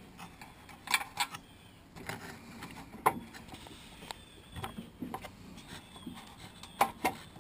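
Socket wrench loosening and backing out a small bolt: a few scattered metallic clicks and clinks, with pauses between them.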